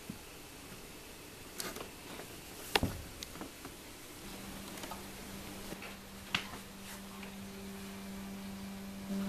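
Room air conditioner running: a steady low hum comes in about four seconds in and grows stronger toward the end. A few sharp knocks come before it, the loudest about three seconds in.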